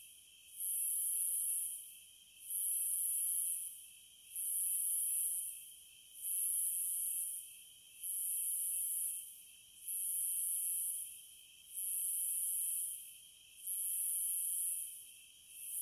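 Cicadas buzzing in a repeating high-pitched pulse, each swell lasting about a second and recurring about every two seconds, over a steady lower buzz.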